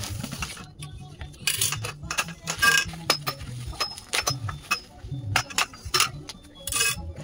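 Plastic packaging rustling and crinkling in short bursts as it is pulled off the swing bed's white frame tubes, with light clinks and taps as the tubes are handled and set down on a tiled floor.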